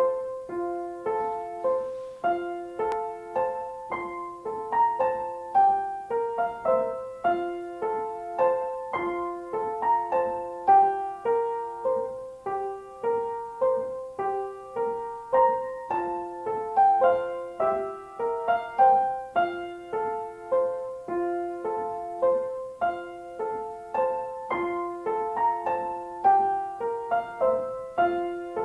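Solo grand piano played with both hands: a tune of struck notes and chords in the middle register, moving at a steady, even pulse.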